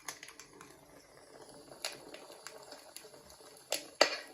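Crackling fire sound from a Babelio mini white noise machine's bonfire setting: a soft steady hiss with irregular pops and snaps. The loudest snaps come close together about four seconds in.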